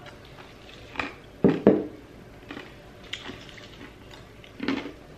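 Crushed ice being sipped from a cup and crunched: a handful of separate sharp crunches and clinks, the loudest about a second and a half in.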